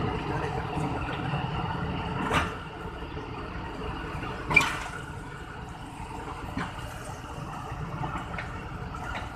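ZCU20 diesel-electric locomotive standing and idling with a steady rumble and hiss. Two sharp knocks come about two and a half and four and a half seconds in, with a few fainter ticks later.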